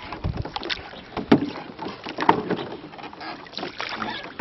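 Oars working a small rowing boat: water splashing and sloshing with each stroke, with two sharp knocks about a second apart near the middle.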